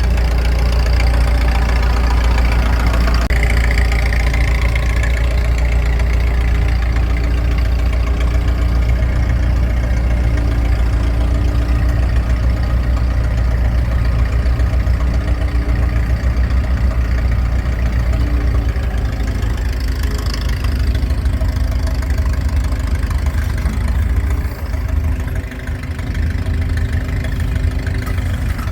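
Massey-Ferguson 30 industrial tractor's engine running steadily, with a brief dip in loudness near the end.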